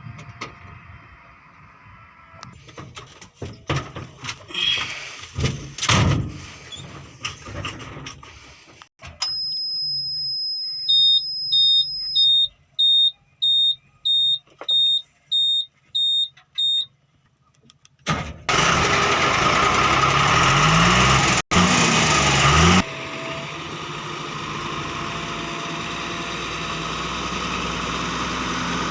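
Irregular knocks and clatter, then a steady electronic tone followed by a string of about a dozen high warning beeps, about two a second. Then the JCB 3DX Plus backhoe loader's diesel engine is cranked with a wavering low pitch, catches, and runs steadily.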